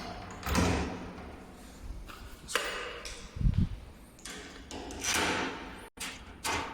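A lock cylinder being fitted into a door lock by hand: scattered short metal clicks and scrapes, with one dull knock about three and a half seconds in.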